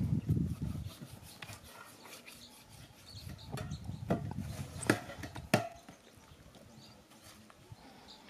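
Knife cutting and scraping through a raw lamb carcass on a metal tray, with a few sharp knocks about halfway through, the two loudest about half a second apart.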